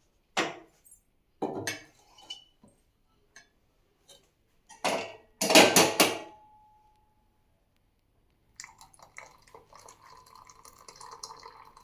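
Kitchen vessels clinking and knocking together several times, the loudest knocks about five to six seconds in with a brief ring. Then, from about eight and a half seconds, a steady stream of milk is poured into the strained herbal tea.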